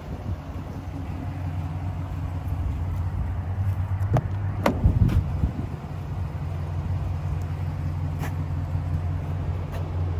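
Chevrolet Suburban's engine idling steadily, a low even hum, with a few clicks and knocks about four to five seconds in.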